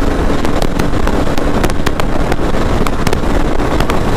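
Honda CB300R's single-cylinder engine running hard at high road speed, buried in heavy wind rush on the microphone, with irregular sharp crackles throughout.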